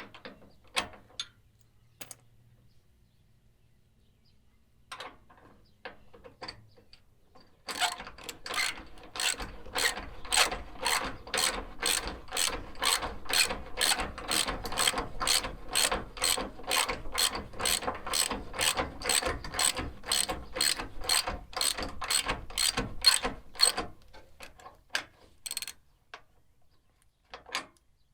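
A hand ratchet clicking in a steady run of strokes, about two or three clicks a second for some sixteen seconds, as a nylon-insert locking nut is tightened onto the tie-down's mounting bolt. A few scattered handling clicks come before it and after it.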